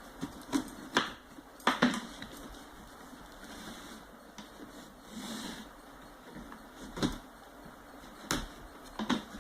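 A box being pulled open by hand after its tape is cut: a few sharp taps and knocks, loudest around the first two seconds and again near the end, with soft rustling of the packaging in between.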